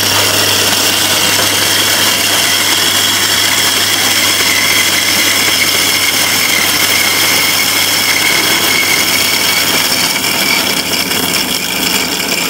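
Electric burr coffee grinder running, grinding robusta beans at a coarse setting for a V60 pour-over: a loud, steady motor whir with grinding noise and steady high tones. The low hum under it drops out about ten seconds in.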